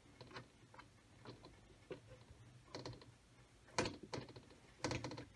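Light taps and clicks of cookie dough pieces being set down and pushed together on a metal baking sheet, scattered and irregular, with two sharper knocks near the end.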